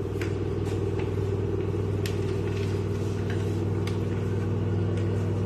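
A steady low machine hum, with a few faint light clicks on top.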